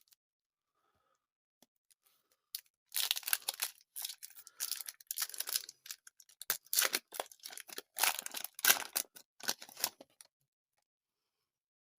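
A trading-card pack wrapper being torn open and crinkled by hand, in irregular runs of crackling and tearing for several seconds, stopping near the end.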